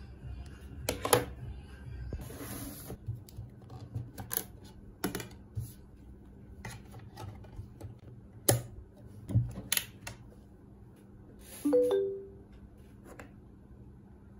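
Sharp plastic clicks and taps from handling a white wall-mounted CD player and its remote, with a brief plastic rustle about two seconds in and several louder clicks as a disc is pressed onto the spindle. About twelve seconds in, the player gives a short two-note electronic chime as it switches on.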